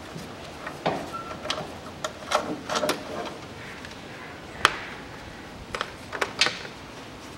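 Scattered metal clicks and knocks from fitting the front brake caliper back over the disc and handling its parts, with one sharp click a little after four and a half seconds in.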